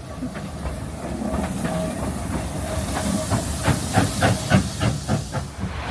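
Steam locomotive hissing steam, with a quick run of short beats at about four or five a second in the second half, getting gradually louder.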